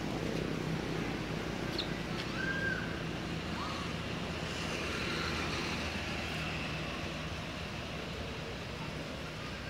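Steady outdoor background noise with a low rumble. A few short, high chirps come about two seconds in and again a second or so later.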